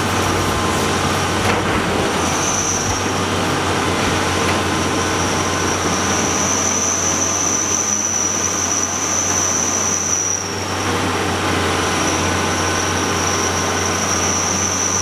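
Doosan DX225LCA crawler excavator working: its diesel engine and machinery run steadily under a constant high-pitched whine. The level dips briefly about ten seconds in.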